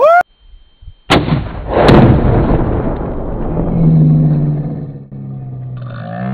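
A .308 rifle shot, then a moment later the boom of a Tannerite exploding target detonating downrange, rumbling and echoing away over several seconds.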